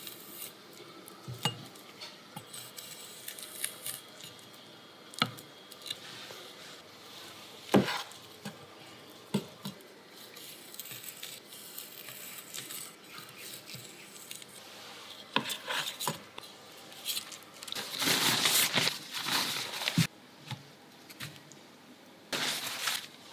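Kitchen knife tapping and clicking on a wooden cutting board while raw shrimp are cut and cleaned: scattered sharp knocks a second or two apart. A louder noisy stretch of about a second and a half comes about three quarters of the way through.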